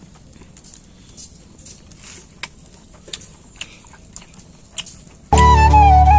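A few sharp clicks and crackles over quiet background, then about five seconds in, loud flute music over a steady drone starts abruptly.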